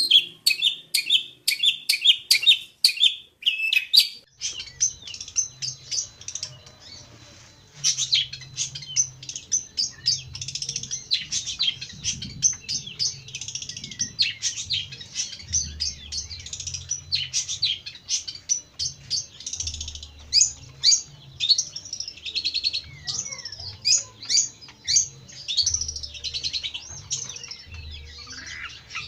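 Long-tailed shrike (pentet) singing: a fast run of repeated chattering notes for about four seconds, then after a short lull a long, varied, unbroken warbling song.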